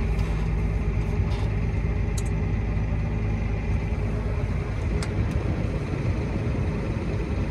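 John Deere 7820 tractor's six-cylinder diesel engine running steadily, heard from inside the cab, with a few faint clicks.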